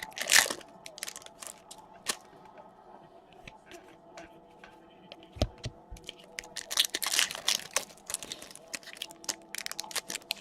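Foil wrapper of a trading card pack crinkling and tearing in two short bursts, with scattered light clicks of cards being handled in between.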